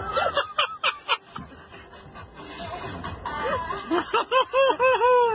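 A person laughing in short pitched bursts: a quick cluster of giggles about half a second in, then a steady run of laughs, about four a second, near the end.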